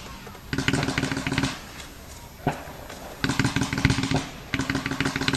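Consumer fireworks going off: three volleys of rapid crackling shots, each about a second long, with a single bang between the first and second.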